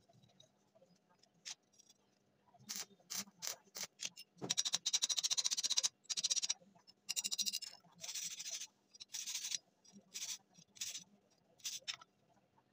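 Slag being scraped and brushed off a fresh stick weld on steel rebar: a series of scratchy metal-on-metal strokes that come in rapid runs near the middle, with single strokes before and after.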